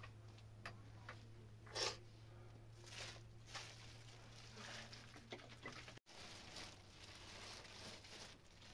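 Faint scattered rustles and light clicks, like things being handled, over a steady low hum that stops with a brief break about six seconds in.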